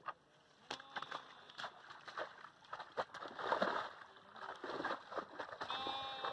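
Bare feet splashing and squelching through shallow water and soft mud in a flooded grassy field, in irregular steps, with one louder slosh about halfway through. A short pitched sound is heard near the end.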